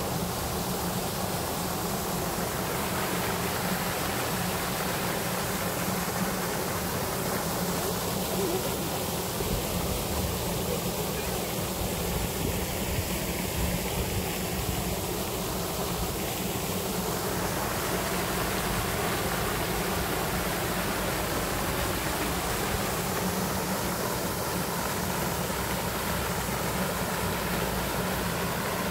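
Spray fountain in a pond, its jet splashing back onto the water in a steady, even rush.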